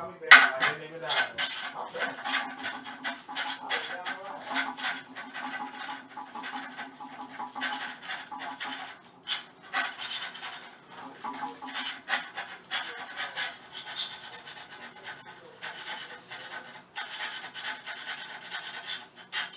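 Rapid, uneven scrubbing strokes as grime is cleaned off a toilet part, with one sharp knock just after the start.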